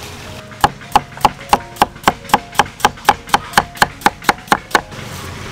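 Cleaver chopping through a cucumber onto a wooden cutting board: a steady run of about sixteen sharp knocks, about four a second, starting about half a second in and stopping about a second before the end.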